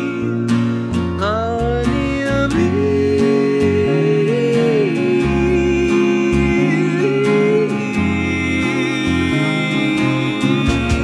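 Background music: a song with guitar, its melody gliding up about a second in and then holding a long, wavering note.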